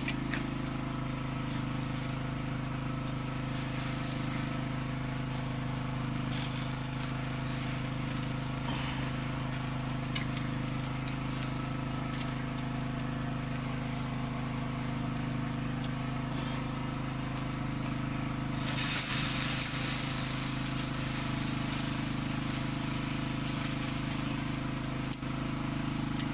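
A small engine droning steadily with an unchanging pitch, with a brief louder hiss about two-thirds of the way through.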